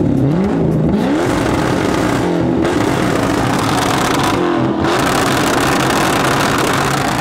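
Sports car engine revving through its exhaust. It rises in pitch over the first second, runs loud and steady, and revs again about four and a half seconds in.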